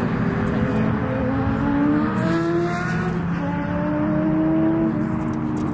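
Sports car engine at full throttle on a race track. Its pitch climbs, drops at an upshift about two seconds in, then climbs again through the next gear and eases off near the end.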